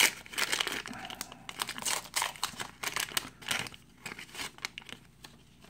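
Wax-paper wrapper of a 1982 Donruss baseball card pack being torn open and peeled off the cards: quick, dense crackling and tearing for the first few seconds, thinning to scattered crinkles near the end.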